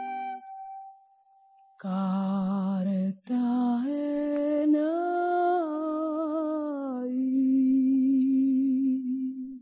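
A woman's voice humming a cappella in long, slow held notes with vibrato. The tune climbs in a few steps and then settles back down to a low sustained note. In the first second, the last chord of the preceding accompanied music dies away.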